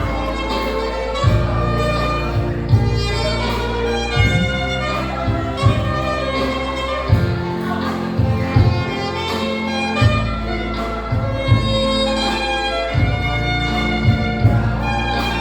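Instrumental music with a steady beat: a held melody line over sustained bass and chords.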